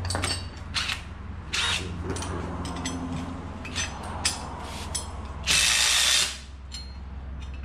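Cordless impact driver hammering a bolt tight in one short burst of under a second, about five and a half seconds in. Scattered clicks and clinks of tools and metal parts come before it.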